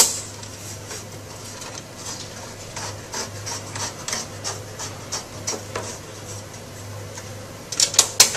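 Thumb screw being turned by hand into the rear of a sheet-metal instrument cover: a run of short scraping strokes, two or three a second, with a sharp click at the start and a few loud clicks near the end.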